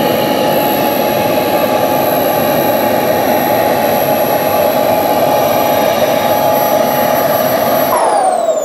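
Model turbine jet engine of an RC Fouga Magister running at idle: a steady high whine over a rushing exhaust. About eight seconds in, it is shut down, and the whine slides down in pitch as the turbine spools down and the sound fades.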